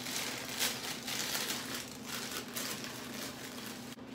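Plastic bag of dry cake mix crinkling in the hands as it is worked open, in irregular rustles.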